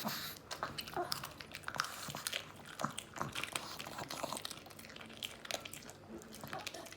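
Pug eating chicken: a series of irregular wet chewing and crunching clicks as it bites and chews the meat.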